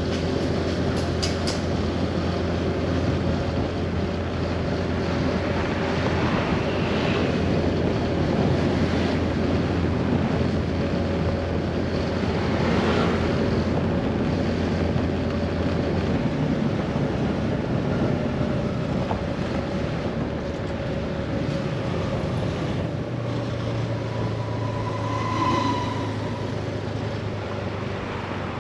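Scooter engine running steadily under way, with wind and road noise; its note shifts lower about halfway through and rises again later on. A brief tone sounds near the end.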